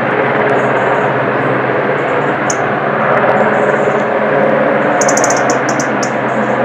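Search-and-rescue helicopter running steadily: a loud, even engine and rotor noise with a low hum.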